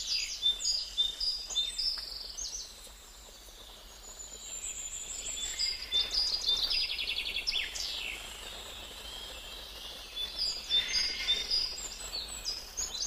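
Small birds chirping and trilling in bursts of quick, high repeated notes, with a lull about three seconds in.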